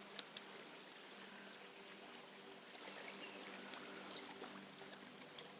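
Swollen, muddy creek in flood, running with a faint steady rush. About three seconds in, a high buzzing trill sounds for roughly a second and a half, the loudest thing here.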